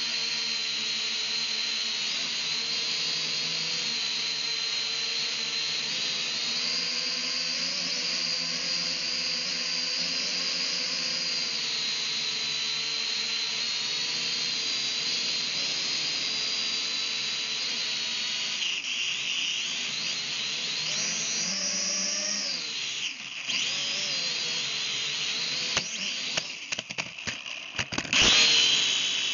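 Small drone's electric motors and propellers whining steadily at a high pitch. About two-thirds in, the pitch swings up and then back down. Near the end the sound stutters and cuts in and out, with a loud knock about a second before the end.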